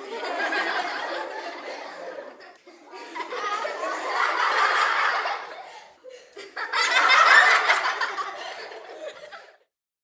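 Laughter in three long bouts of a few seconds each, with brief pauses between them; the last bout is the loudest.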